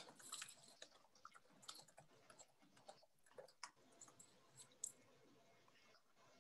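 Faint, irregular clicking of computer keyboard typing over near silence; the clicks stop about five seconds in.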